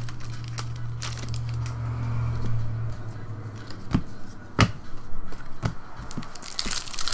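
Foil trading-card pack wrapper crinkling as the cards are slid out and handled, with a few sharp knocks around the middle as things are set down on the table. A low hum underneath stops about three seconds in.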